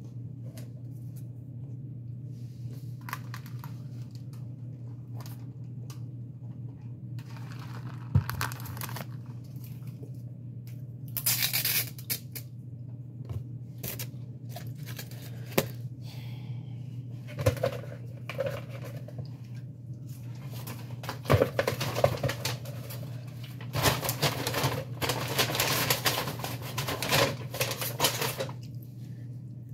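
Paper food wrappers and small condiment packets being handled, crinkling and tearing in irregular bursts over a steady low hum; the longest, busiest stretch of crinkling comes near the end.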